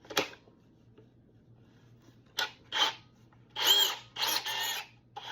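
Milwaukee cordless compact bandsaw's motor run in four short trigger pulls, spinning up and winding down each time, a new blade freshly fitted. A sharp click comes right at the start.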